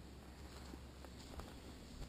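Faint footsteps of a hiker walking a dirt and leaf-litter forest trail: a few soft ticks, the sharpest about a second and a half in, over a low steady rumble.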